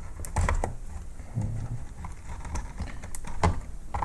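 Irregular small plastic clicks and taps as wire connectors are worked loose from a robot vacuum cleaner's circuit board, with a few soft low knocks.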